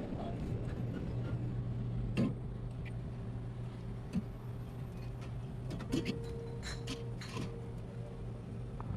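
Scattered clinks and knocks of drink bottles and cans being handled, a few sharp ones spread out, over a steady low hum.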